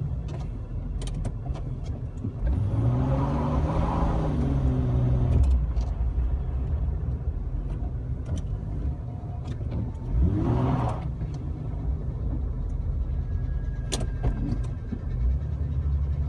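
Jeep Wrangler TJ engine running while driving on snow, revving up about two and a half seconds in and holding for a few seconds, then revving briefly again around ten seconds in. Scattered faint clicks are heard throughout.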